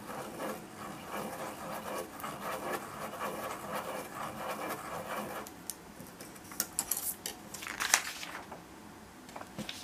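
Ballpoint pen scratching on paper while a plastic spirograph gear rolls around inside a toothed plastic ring, a steady rubbing and ticking. It stops about five seconds in, followed by several clacks and a rustle as the plastic ruler is lifted off the paper, the loudest about eight seconds in.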